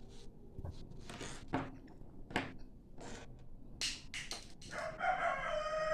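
A few soft clicks and rustles, then a rooster crowing near the end: one long call that falls slightly in pitch and lasts almost two seconds, the loudest sound here.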